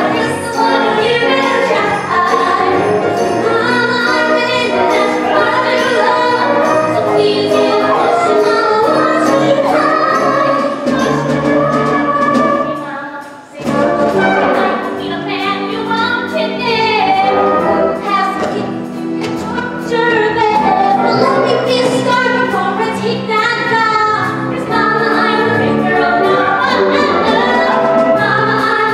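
Stage musical number: several voices singing an upbeat show tune over instrumental accompaniment, with a brief break about halfway through.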